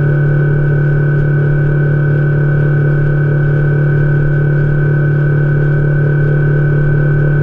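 Boat's outboard motor running steadily at cruising speed, a loud, even drone with a low hum and a higher whine that do not change.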